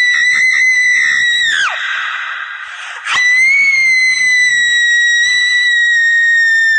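Scream sound effect from a scary-sounds soundboard app: a long, shrill, high-pitched scream that drops off sharply about a second and a half in, with a brief echoing tail. A second long scream of the same kind starts about three seconds in and falls off again near the end.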